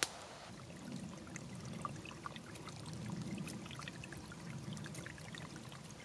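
Small woodland stream trickling over sticks and stones: a steady low rush that swells and eases, with many tiny splashes of drops over it. A brief click at the very start.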